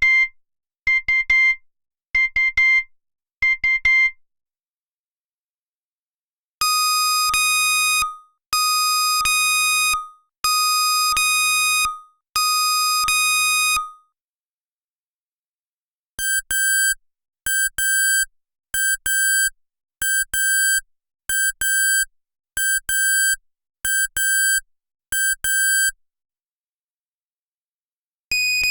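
Digital alarm clocks beeping, three different alarm patterns in turn with short silences between them. First come quick paired beeps, ending about four seconds in. Then four long beeps about two seconds apart, then a run of short paired beeps at a different pitch.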